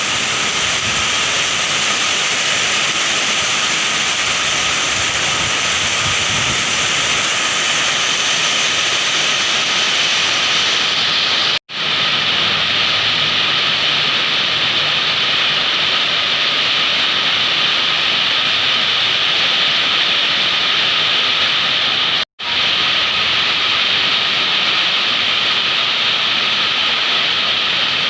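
Heavy rain pouring down in a steady loud rush. It drops out for an instant twice, a little under halfway and about four-fifths of the way through.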